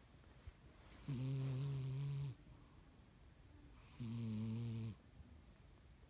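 Sleeping cat snoring: two snores about three seconds apart, each lasting about a second, a low even tone with a breathy hiss over it.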